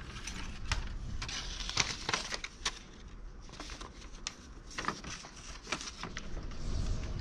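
Sheets of printed paper rustling and crinkling as they are handled, a run of irregular crackles.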